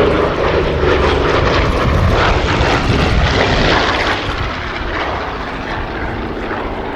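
Douglas A-26 Invader's twin Pratt & Whitney R-2800 radial piston engines running hard as the aircraft makes a display pass, a loud propeller drone that is strongest in the first half and then eases off a little.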